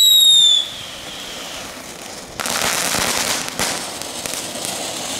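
Small consumer ground fireworks going off: a ground spinner whistles with a falling pitch that stops under a second in, then small fountains hiss as they spray sparks, louder from about two and a half seconds in.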